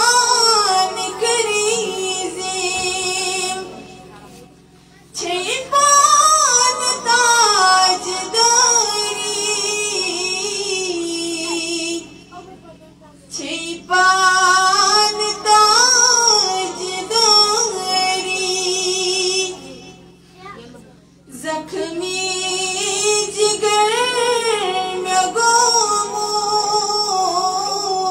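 A woman's voice singing devotional verses unaccompanied into a microphone, in long melodic phrases with a wavering, ornamented pitch, pausing for breath three times.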